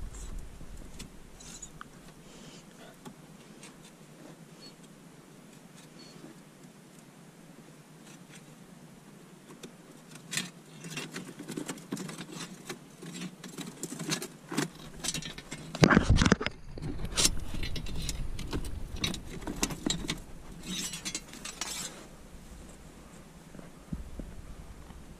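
A metal tool knocking and scraping against rock, with irregular clinks. It is sparse for the first ten seconds, then turns into a busy run of knocks and scrapes with one loud knock about sixteen seconds in.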